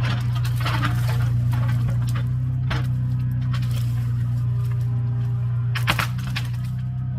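Mini excavator's diesel engine running steadily at constant speed, with wood cracking and snapping now and then, loudest about six seconds in.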